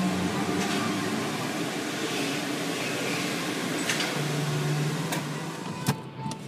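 Steady rushing noise of automatic tunnel car wash equipment, heard from inside the car, with a few sharp clicks in the second half. The noise drops away suddenly near the end.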